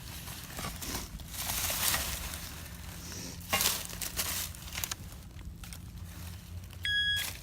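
Digging into forest soil with a hand tool, crunching and scraping through dirt, sod and roots in several spells. A short electronic beep sounds near the end.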